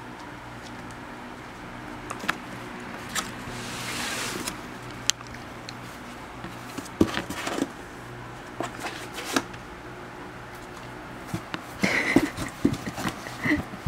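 Light knocks and scrapes on a cardboard box as a dachshund shifts inside it and a cat paws at its edge. In the last couple of seconds the knocks and clicks come quicker, with a few short high squeaks, as the dog snaps at the cat's paw. A low steady hum runs underneath throughout.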